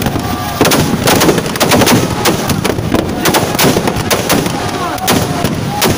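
Firecrackers packed inside a burning Ravan effigy going off in a rapid, irregular string of loud bangs.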